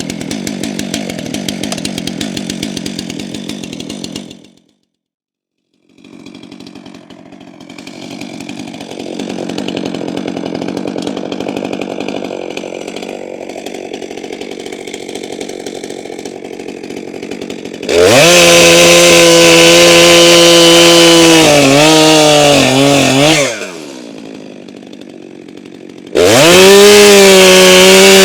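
Stihl MS 462 two-stroke chainsaw idling as it warms up after a cold start, then run up to full throttle twice for several seconds each while cutting through a log, the engine note sagging and wavering under load before it drops back to idle.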